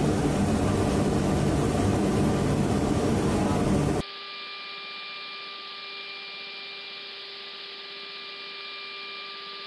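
Loud, steady aircraft engine noise during taxi, which cuts sharply about four seconds in to a quieter, steady hum with a few thin steady tones inside a C-130 cockpit.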